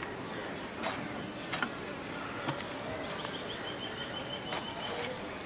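A boti blade cutting through a peeled modhumala vegetable, a few crisp, separate slicing clicks spread out, over rural outdoor background noise. A faint high trill runs from about three to five seconds in.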